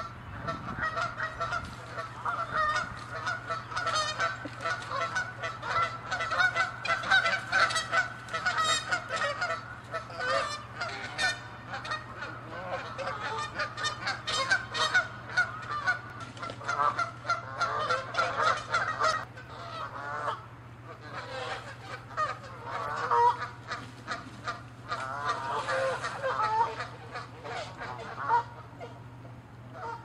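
Canada geese honking, many short honks overlapping in a dense, continuous run that thins for a moment about two-thirds through.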